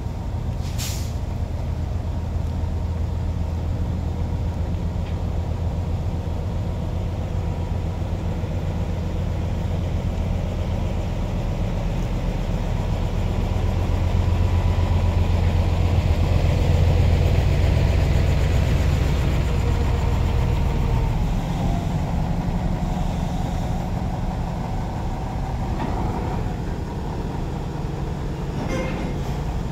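Heavy diesel engines of a truck-mounted crane and a container truck running steadily. They grow louder for several seconds in the middle as the truck backs up under the hanging container. A sharp click comes about a second in.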